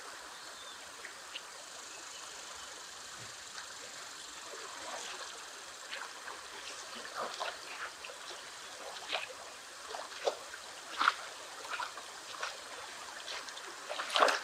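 Fast river current running, with short irregular splashes from about five seconds in, louder near the end, as a hooked rainbow trout thrashes at the surface by the landing net.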